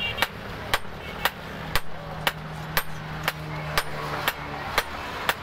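Two strikers' sledgehammers taking turns on hot leaf-spring steel held on a block anvil: sharp metal-on-metal strikes in an even rhythm, about two a second.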